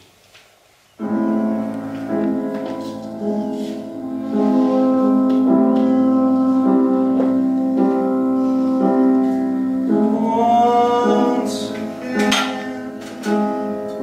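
Piano music played live, starting abruptly about a second in and continuing with held notes.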